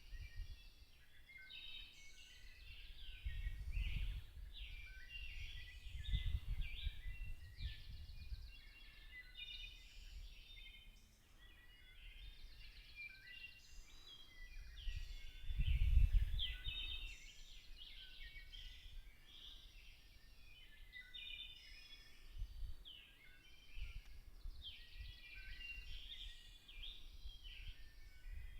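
Chorus of many small birds chirping and trilling at once, dense and overlapping throughout. Several low rumbles come and go beneath it, the loudest about halfway through.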